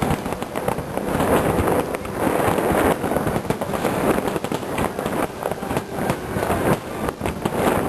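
Aerial fireworks shells bursting in quick succession: a dense, unbroken run of bangs and crackles.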